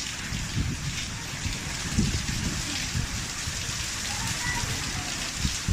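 Heavy rain falling steadily, an even hiss of rain on surfaces with an uneven low rumble beneath it.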